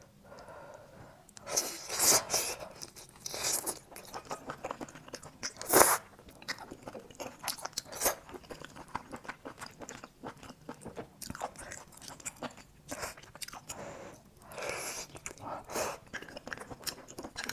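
Chewing and biting into a grilled oyster with garlic sauce: an irregular run of mouth noises and sharp clicks, with louder bursts about two seconds in and again near six seconds.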